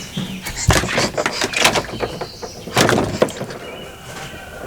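A few sharp knocks, with a denser clatter about three seconds in.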